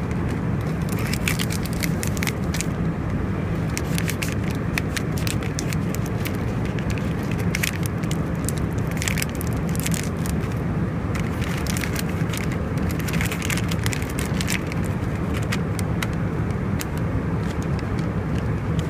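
Foil-and-plastic snack packets crinkling and rustling as they are handled, in many short spells, over the steady low cabin drone of an Airbus A319 with IAE engines in cruise.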